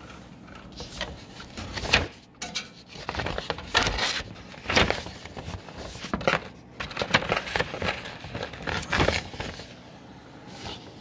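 Wide roll paper rustling and scraping as it is handled and pushed by hand into a large-format plotter's feed slot, with irregular knocks against the plotter's casing.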